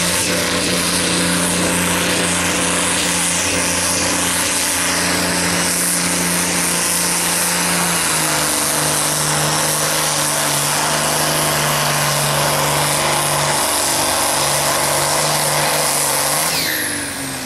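Fordson tractor's diesel engine running flat out as it drags a pulling sled. Its note drops and stays lower about halfway through as the engine lugs under the growing load, and it eases off near the end.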